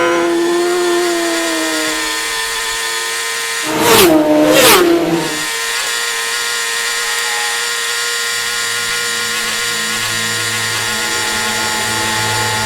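Racing motorcycles at full throttle: a steady high engine whine, with two bikes flashing past close by about four seconds in, under a second apart, their pitch dropping as they go.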